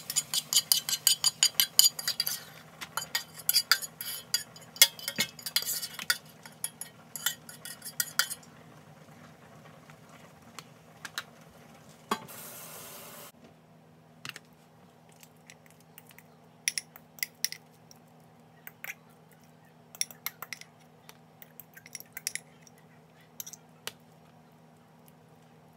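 Cookware and utensils clinking and scraping as food is served from a stainless steel pan into plastic containers: a quick run of clinks for the first eight seconds or so, then scattered clinks and knocks. About twelve seconds in there is a brief rush of running water at the sink, and a low steady hum sits underneath throughout.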